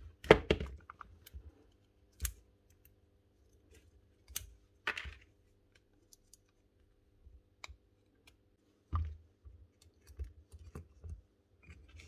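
Scattered small clicks and taps of plastic and metal parts being handled as the carbon brushes are changed in the motor end of a Makita DTD156 cordless impact driver, worked with the fingers and a screwdriver. The loudest knocks come just after the start and about nine seconds in.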